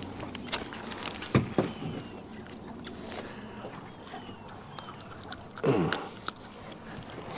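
Handling noises on a small fishing boat as a crappie is lifted aboard and held up: a few sharp clicks and knocks over a low steady background, and a short, louder low sound that bends in pitch about three-quarters of the way through.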